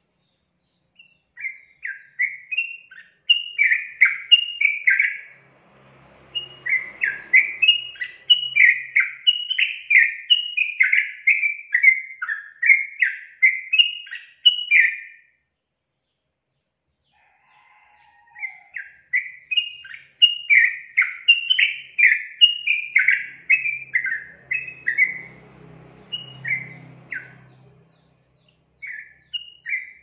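Yellow-vented bulbul singing: long runs of quick, short falling notes, breaking off for about two seconds midway and resuming, with a few last notes near the end.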